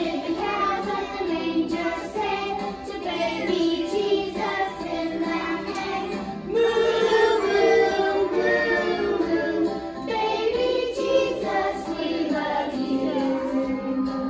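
A group of preschool children singing a praise song together.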